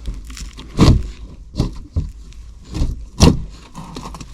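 Irregular scraping and knocking, a few loud strokes over a low steady rumble, from handling work.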